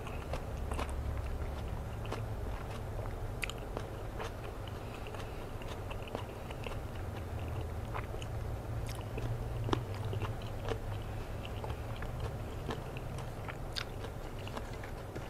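A person chewing a mouthful of food close to the microphone, mouth closed: soft wet clicks and smacks at irregular intervals.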